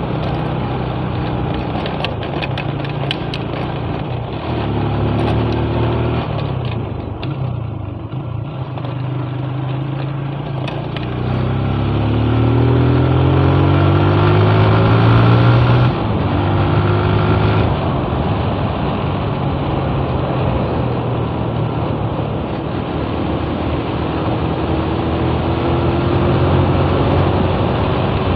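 Motorcycle engine running under way, heard from the rider's seat. About twelve seconds in it rises in pitch as the bike accelerates, drops suddenly about four seconds later as the throttle is eased or a gear is changed, then runs steady. A few clattering knocks come in the first few seconds on the rough dirt surface.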